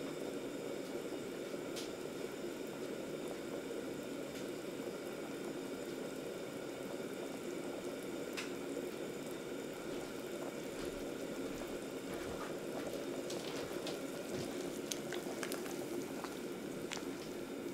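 Pot of soup, roasted root vegetables in water, boiling on the hob: a steady bubbling. Near the end come a few light clicks as a utensil stirs the chunks in the pot.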